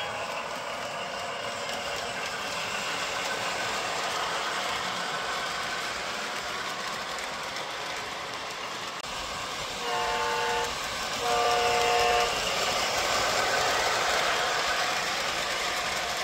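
Sound system of a Lionel Line Chief 44-tonner O-scale model diesel locomotive running: a steady diesel engine sound over the rumble of the train rolling on the track, with two horn blasts about ten and eleven seconds in, the second louder.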